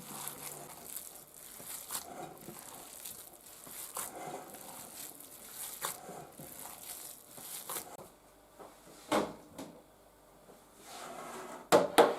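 Hands mixing and squeezing raw minced beef meatball mixture, an irregular soft squelching that stops about eight seconds in, followed by a few light knocks.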